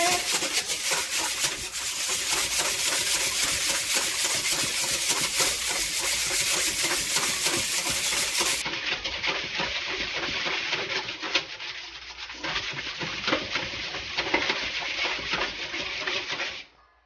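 Wire whisk beating a thin liquid marinade in a stainless steel bowl: a rapid, steady scraping and rattling of the wires against the metal. It cuts off abruptly just before the end.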